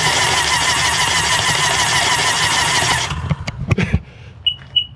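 Electric starter cranking the hydrolocked three-cylinder engine of a 2005 Sea-Doo GTX over with a steady fast rhythm, trying to clear water from the cylinders. It stops abruptly about three seconds in, followed by a few knocks and a thump.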